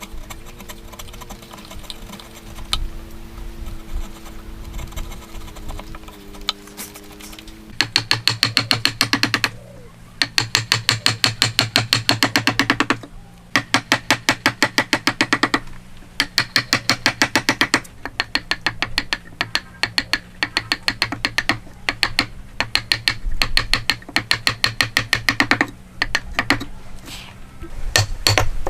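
Fast, even mechanical clicking, about ten clicks a second, in runs of two to three seconds with short pauses, over a steady low hum. For the first several seconds only steady low tones are heard.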